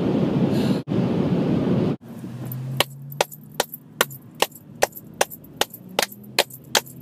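Road noise inside a moving car for about two seconds, then rhythmic hand clapping, about two or three sharp claps a second.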